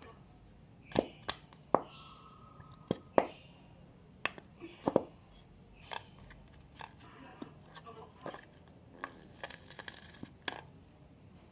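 Irregular clicks and sharp knocks of plastic slime-making containers and utensils being handled while clear glue is added, with a short rustle near the end.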